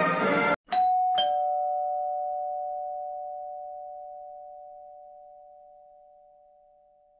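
Two-note doorbell chime: a high 'ding' then a lower 'dong' about half a second later, both ringing on and fading away slowly. A brief loud noisy sound cuts off just before the chime.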